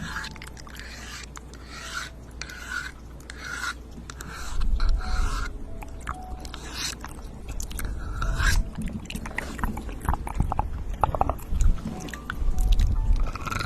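Close-miked ASMR trigger sounds: irregular bursts of rubbing and scraping with wet mouth-like clicks, busier and louder from about halfway in, with low thumps of contact against the microphone.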